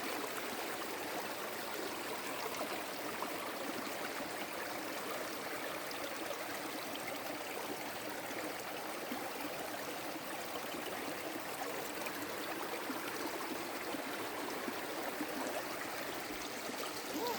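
Mountain creek water pouring over mossy rocks and small falls, a steady rushing and gurgling.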